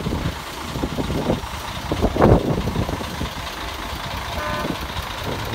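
Large diesel coach engine idling with a steady low rumble, with a loud rushing burst about two seconds in and a short beep near the end.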